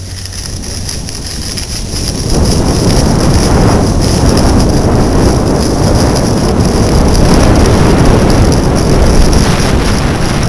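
Wind rushing over a helmet-mounted Flip camera's microphone as a skier gathers speed downhill, mixed with skis sliding on groomed snow. It gets much louder about two seconds in and stays loud.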